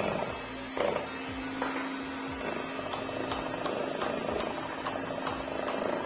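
Electric hand mixer running steadily, beating cake batter in a bowl.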